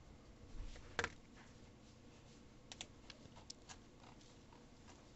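Faint, scattered light clicks over quiet room tone: one sharper click about a second in, then a quick run of lighter clicks a little past halfway.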